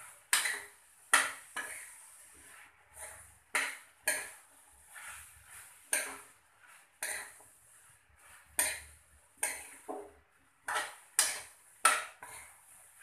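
A spatula stirring and scraping chopped potato and capsicum in a frying pan, clinking against the pan irregularly one or two times a second.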